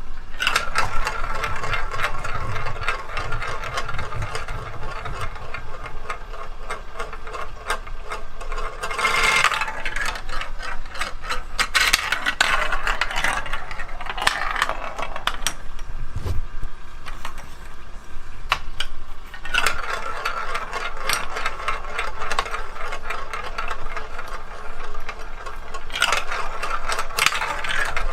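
Plastic marble-run building blocks clattering and clicking: dense, irregular clicks, with several louder stretches of rattling.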